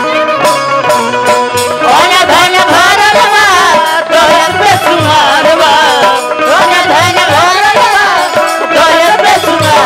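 Bhojpuri folk singing: a voice sliding and ornamenting its pitch over held accompanying notes and hand-drum beats.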